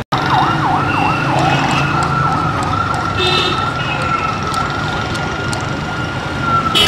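Emergency vehicle siren: a fast yelp sweeping quickly up and down for about the first two seconds, then changing to a long, nearly steady high tone, over street traffic noise.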